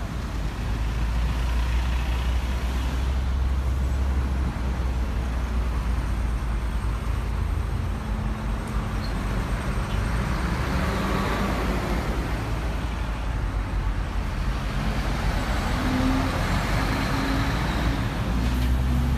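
Busy road traffic: vehicle engines running over a steady low rumble, with vehicles passing close by, one around the middle and more near the end.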